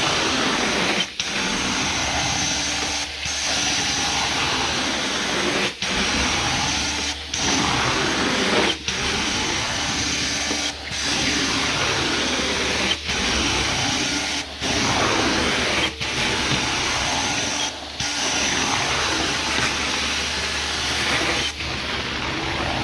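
Carpet-cleaning extraction wand running over carpet: a steady rushing hiss of suction and spray that breaks off briefly every one and a half to two seconds as the wand is drawn back stroke by stroke.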